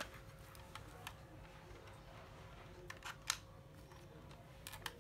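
Faint handling noise from a Black & Decker 12V cordless drill being turned over in the hands: a few short, sharp clicks and knocks, the loudest a little past the middle and two close together near the end. The drill's motor is not running.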